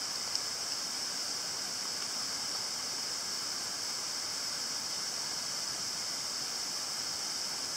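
Steady high-pitched chorus of night-time insects calling, an even unbroken drone with nothing else standing out.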